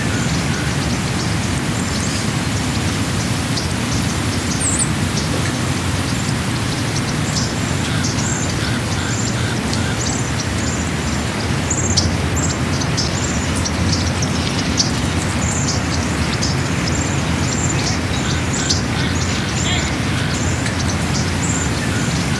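Birds chirping in many short, high calls over a steady low rumble of background noise.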